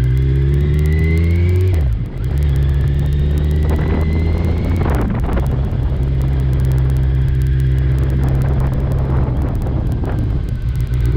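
Sport motorcycle engine under way: it climbs in pitch for nearly two seconds, dips briefly at a gear change, climbs again for about three seconds and then holds a steady cruise, with wind noise over it.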